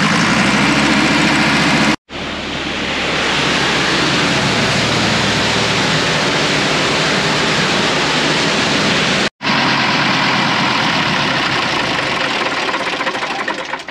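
Air-cooled multi-cylinder pump engine running hard at high throttle to pump water, easing off near the end.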